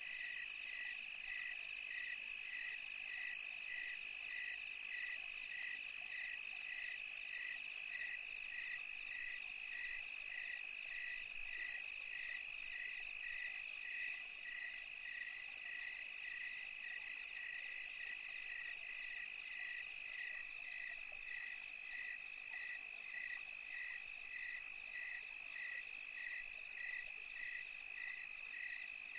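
Night-time chorus of calling insects and frogs: a steady high trill with a regular chirp repeating a little over twice a second.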